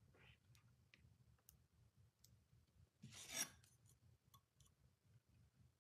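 Quiet handling of an unboxed item and its packaging: scattered faint clicks, with one louder brushing swish about three seconds in.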